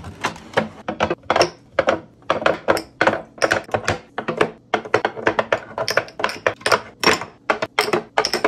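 Glass spice jars with bamboo lids set one after another onto a bamboo tiered spice-rack insert in a drawer: a quick, irregular run of sharp knocks and clinks of glass and wood, several a second.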